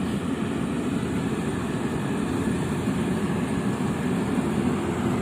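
Rice combine harvester running steadily, its engine and threshing machinery making a dense, even rattling drone.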